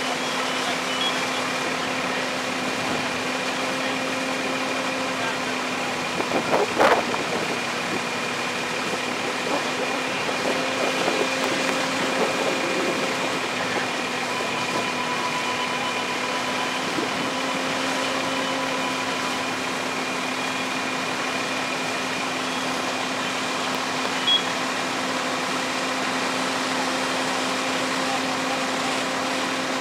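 Fire engine running steadily while it pumps water to a hose line: a constant mechanical drone with a steady hum. A brief clatter stands out about seven seconds in.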